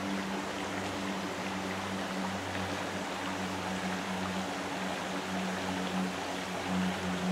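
A steady low hum, like a running motor, holding one pitch throughout over an even background hiss.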